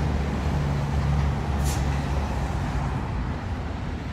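Steady low rumble of a running motor vehicle, with a brief high hiss about a second and a half in.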